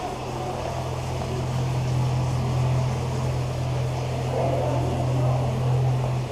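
A steady low mechanical hum, like a motor or pump running, with a faint murmur above it.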